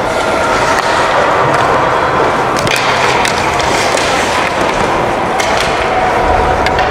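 Ice hockey play on the rink: skate blades scraping and carving the ice in a steady wash of noise, with a few sharp knocks.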